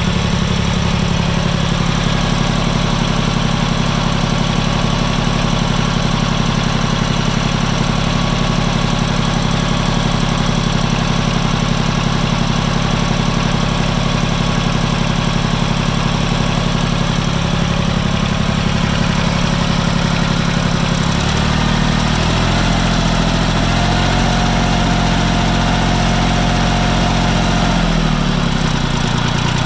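Farm Pro 2425 tractor's diesel engine running steadily at idle, with no knock yet: the engine is still fairly fresh from a cold start, and the knock appears only after 5–10 minutes of running. About two-thirds of the way through the engine speed rises and holds, then drops back near the end.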